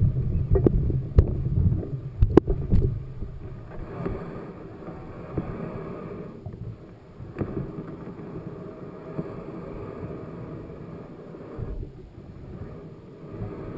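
Mountain bike being ridden over a rough trail: wind buffets the microphone and the bike rattles with sharp clicks. This is loud for the first few seconds, then settles to a quieter steady rush.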